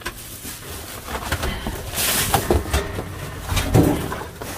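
Rummaging through a pile of discarded goods: irregular rustling, knocks and clatter of objects being moved, with a louder burst of rustling about two seconds in.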